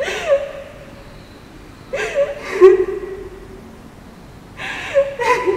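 A woman sobbing and weeping in grief, in three bouts of crying about two seconds apart.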